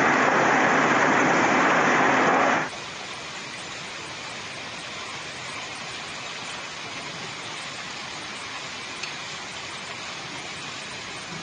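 A hailstorm pelting down in a loud, steady roar. About two and a half seconds in it cuts to a quieter steady hiss of rain and hail falling.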